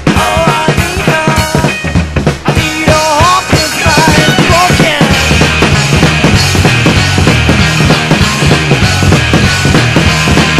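Background rock music with a drum kit keeping a steady beat.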